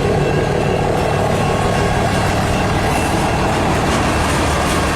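Canadian National freight train's cars rolling slowly past at close range: a steady, loud rumble of wheels on rail.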